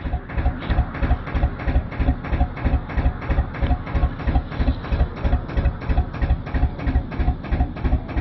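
Freshly rebuilt Lister HA2 two-cylinder diesel engine running steadily at a slow tickover, a regular beat of about four pulses a second.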